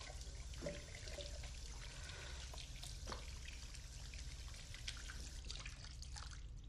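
Water running from a bathroom faucet into the sink while hands are washed under it, with small splashes. The flow stops near the end.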